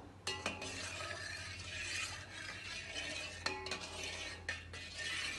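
Steel ladle stirring milk in a stainless steel saucepan, scraping steadily around the pan with a few sharper clinks against the metal, about half a second in and twice near the end.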